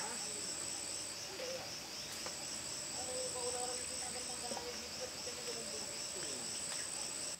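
Rainforest insect chorus: a steady, high, rapidly pulsing chirring with a continuous high whine above it, and a few faint whistled calls underneath.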